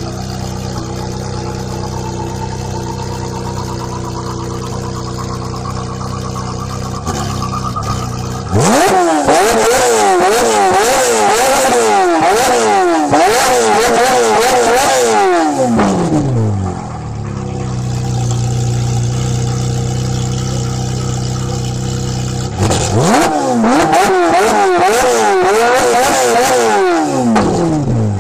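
Ferrari 458 Italia's 4.5-litre V8 with an aftermarket exhaust, idling steadily, then revved hard in two bouts of rapid repeated blips, about 8 and 23 seconds in, each time dropping back to idle.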